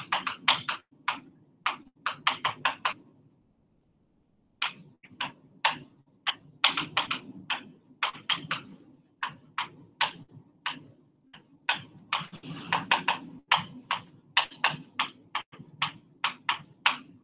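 A felt-tip marker writing on a board: a quick, irregular run of short sharp clicks and taps as the letters are written, with a pause of about a second and a half about three seconds in.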